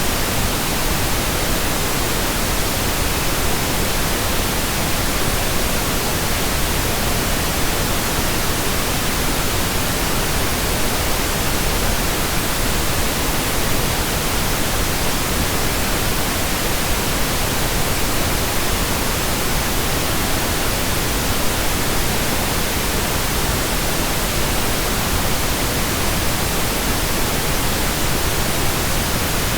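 Synthetic pink noise: a steady, unbroken hiss spread evenly across the whole range, with no changes.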